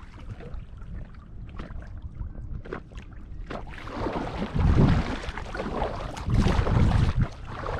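Wind gusting on the microphone and water lapping against an inflatable kayak on choppy lake water. A few light clicks come in the first few seconds. After that the noise swells in surges every second or two.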